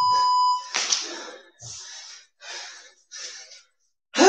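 A single electronic beep, one steady tone lasting just under a second, is the loudest sound. It is followed by a person breathing hard in a string of quick exhales, about one every 0.7 seconds, from the exertion of a cardio workout.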